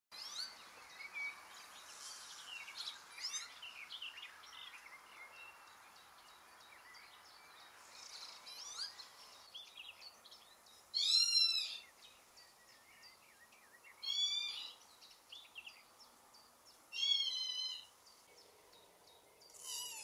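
Northern lapwings calling: a scattering of short, rising calls, then three louder slurred calls about three seconds apart that each rise and fall in pitch, the bird's 'peewit' display call. A faint steady hiss runs underneath.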